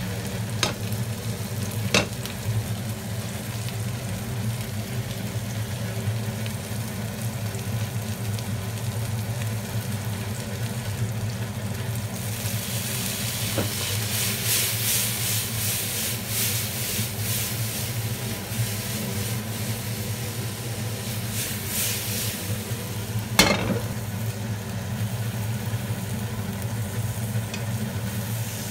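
Capelin pan-frying in oil: a steady sizzle that gets louder for several seconds in the middle, over a low steady hum. A few sharp clicks, the loudest about two thirds through.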